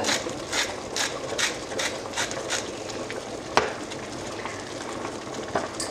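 Meatballs in tomato sauce sizzling and simmering in a pan, with a run of short regular taps about two or three a second, then a single sharp click about three and a half seconds in.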